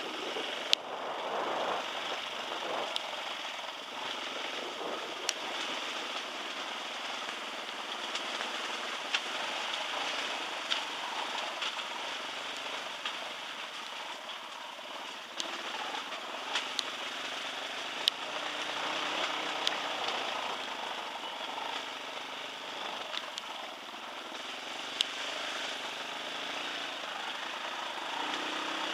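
Dirt bike riding down a rocky trail: a steady rushing noise of the ride with sharp clicks and knocks scattered throughout as it rolls over loose rocks.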